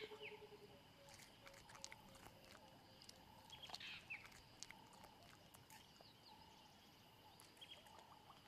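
Near silence with faint bush ambience: a steady high insect drone, a few brief bird chirps and scattered small clicks, with a low rapid pulsing sound fading out in the first second.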